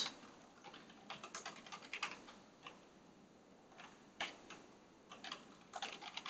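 Faint computer keyboard typing: short, irregular runs of keystrokes with brief pauses between them.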